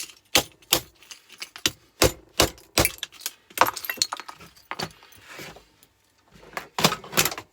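Plastic casing of an old fuse switch being broken away from its metal parts: about a dozen sharp, irregular cracks and clinks of plastic and metal, with a pause shortly after the middle.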